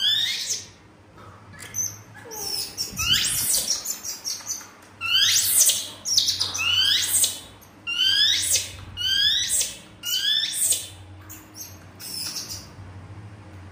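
Baby monkey giving a series of shrill, high-pitched squeals, about one a second, each sweeping up and falling away, with a pause near the end.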